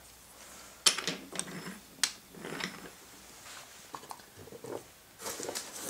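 Wooden toy train cars being handled and set down on a wooden floor: several sharp clicks with light knocking and rustling in between.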